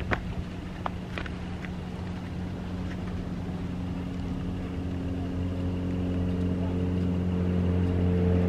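A motor vehicle's engine hum, steady in pitch and growing gradually louder, with a few light clicks in the first second.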